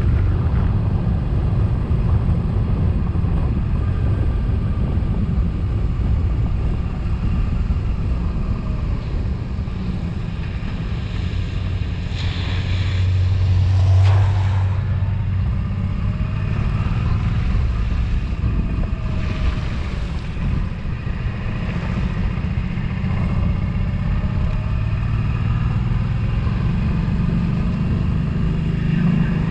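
Suzuki V-Strom's V-twin engine running at road speed under a steady rush of wind noise, swelling louder for a few seconds about halfway through.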